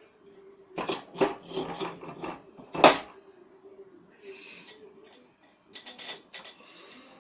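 Metal knocks and clatter as the upper housing of a ceiling fan's motor is fitted back onto it. The loudest knock comes a little under three seconds in, and a few softer scrapes and clicks follow.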